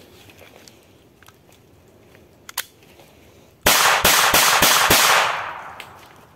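Traumatic rubber-bullet pistol firing about five shots in quick succession, starting about three and a half seconds in, with the report fading away over about a second afterwards.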